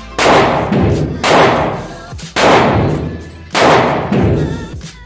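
Gunshots fired one after another at about one a second in an indoor shooting range, each loud crack followed by a long echo off the range walls.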